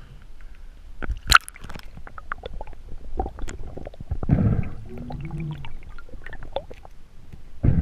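Underwater sounds of a spearfishing dive: scattered clicks and knocks, a loud sharp crack a little over a second in, and a low gurgling burst about halfway through.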